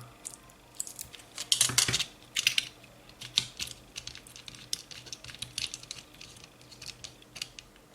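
Kapton heat-resistant tape being pulled off its roll and pressed onto a circuit board: irregular crackly rustles and small clicks, loudest about one and a half to two seconds in.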